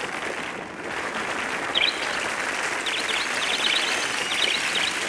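Crowd applauding, fading in and building, with short high cries here and there, as an intro before the song's music comes in.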